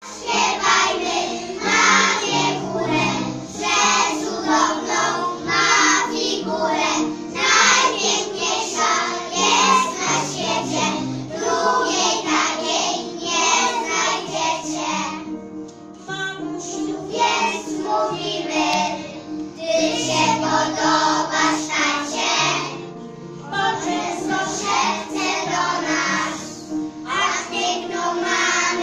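A group of young children singing a song together, over an instrumental backing with steady low notes, with a brief pause between lines about halfway through.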